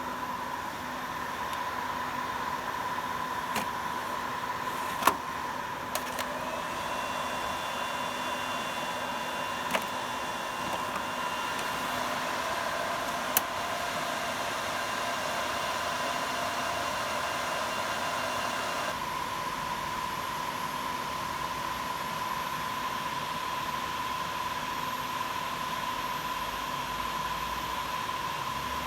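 Steady whir of equipment cooling fans with a constant hum, broken by a few sharp clicks. Some higher tones join about a third of the way in and cut off suddenly a little past halfway.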